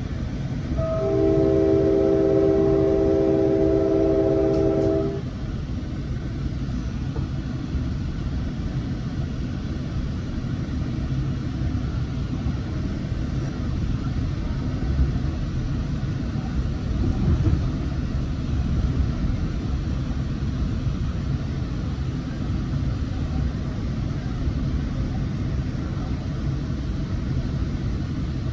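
A train horn sounds one long chord of several steady tones starting about a second in and lasting about four seconds. After it comes the steady low rumble and rail noise of a Coaster commuter train under way, heard from inside the passenger car.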